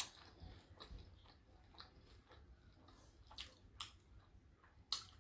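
Faint close-up chewing of crispy fried food: soft wet mouth sounds broken by a few sharper crunches in the second half.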